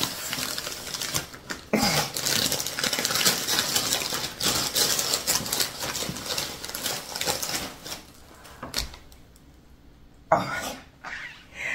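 Gift-wrapping paper crinkling and tearing as a present is unwrapped by hand. The rustling is continuous and busy for most of the first eight seconds, then dies down to a few short rustles.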